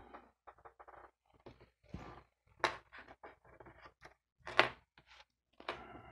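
Irregular small clicks and knocks of hand tools and laptop parts being handled on a tabletop: a screwdriver and a screw picked up and set down. The loudest taps come about two and a half and four and a half seconds in.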